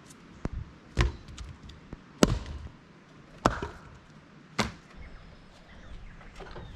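Firewood being broken up: five sharp cracking blows, irregularly about a second apart, then a few lighter knocks.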